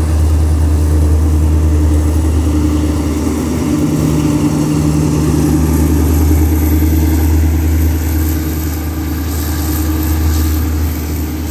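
Alsthom AD24C diesel-electric locomotive no. 4135 running under load as it hauls a passenger train out of the station and past, a steady low engine drone. The drone eases slightly near the end as the locomotive moves away.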